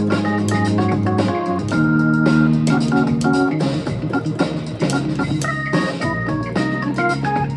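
Digital keyboard played with an organ sound: held low chords that change every second or two under quick short notes in the right hand, in a steady groove.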